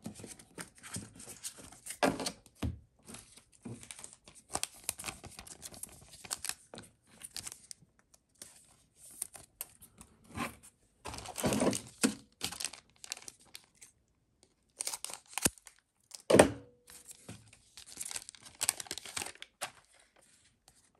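A trading-card booster pack being torn open and its wrapper crinkled and handled, in irregular crackling bursts that are loudest around the middle, with a short knock a little past two-thirds of the way through.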